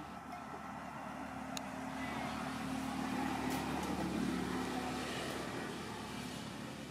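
A motor vehicle engine passing by, its hum growing louder to a peak near the middle and then fading away.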